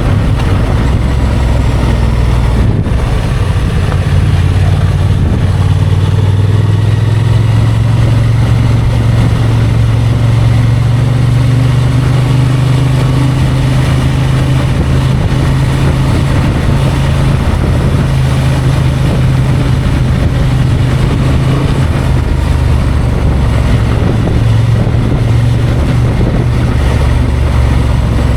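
Honda XL750 Transalp's parallel-twin engine running as the bike is ridden, its revs rising and easing a little, with a steady rush of wind and riding noise on the action camera's microphone.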